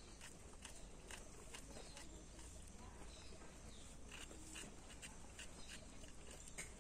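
Faint, crisp clicks of a small knife cutting through sponge gourd (luffa) held in the hand. The cuts come about two a second, unevenly spaced, over a low steady hum.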